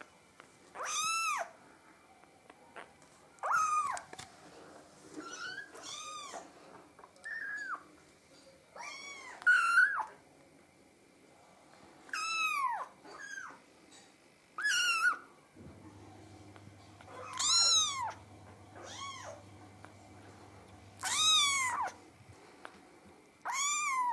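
Three-week-old kitten mewing: over a dozen short, high calls that rise and fall in pitch, coming every one to three seconds.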